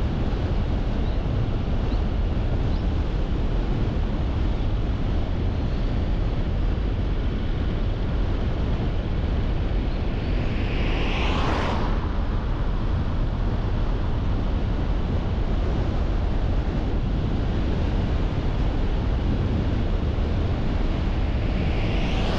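Steady road and wind noise of a car driving through town streets, with a brief swoosh that swells and fades about eleven seconds in and another near the end.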